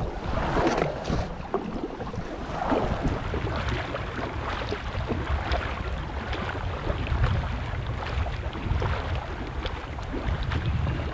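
Wind rumbling on the microphone over small splashes and lapping of lake water, with kayak paddle splashes louder in the first few seconds.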